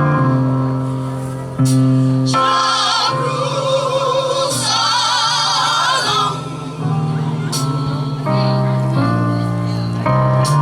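Live gospel music: sustained keyboard chords under singing. In the middle, a voice with a strong vibrato holds long, high notes.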